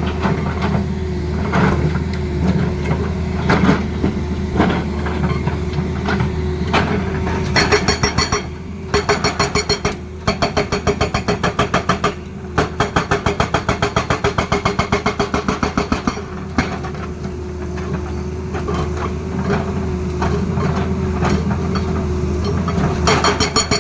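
Tata Hitachi excavator's diesel engine running steadily while its hydraulic breaker hammers in fast, even strokes, about eight to ten a second. The hammering runs from about a third of the way in for some eight seconds, then starts again near the end.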